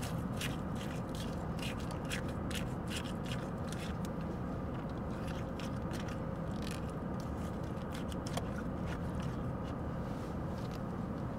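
Hands rummaging beside a car seat: a quick run of small clicks, crinkles and scrapes, several a second, thinning out near the end, over a steady low hum.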